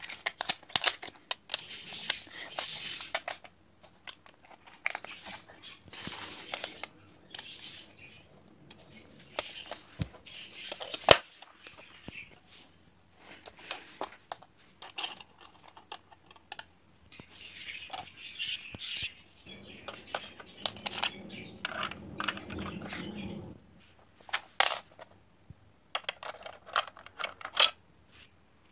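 Plastic LEGO bricks and plates clicking and clattering as they are handled and pressed together, with irregular sharp clicks and a few longer noisy stretches of handling.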